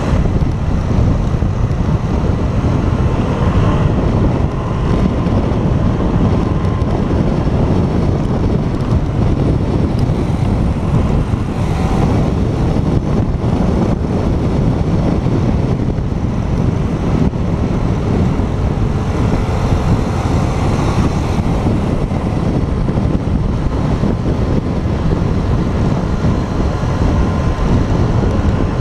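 Steady wind rush over the microphone of a camera on a moving motorcycle, with the motorcycle's engine running beneath it.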